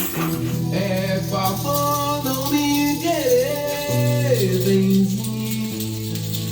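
Music: a shaker rattling in rhythm over held and gliding melody notes.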